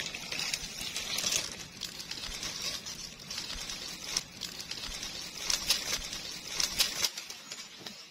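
Irregular rustling and crackling with many sharp clicks, bunched in a few louder clusters.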